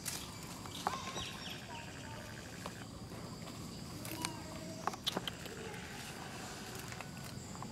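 Steady outdoor background with a few short, pitched animal calls and scattered sharp clicks and rustles, the sharpest about five seconds in.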